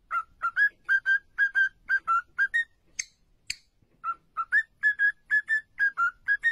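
Cockatiel whistling a tune in short clear notes, about three a second, in two phrases. In the pause between the phrases there are two short, sharp high sounds.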